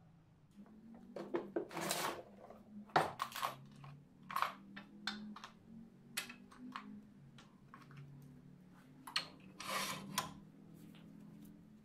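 Metal lathe fittings being handled: irregular clinks, knocks and scrapes as a tool rest is set into the banjo and the chuck is worked on, with longer scrapes about two seconds in and near the end. A faint low hum runs underneath.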